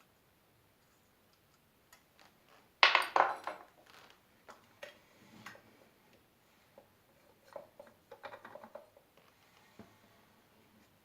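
Small metal parts clinking and clattering as they are handled and set down: a burst of knocks about three seconds in, then scattered lighter clicks and rattles.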